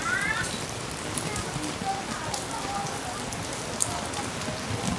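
Steady rain falling on a street, an even hiss with a few sharp ticks of single drops.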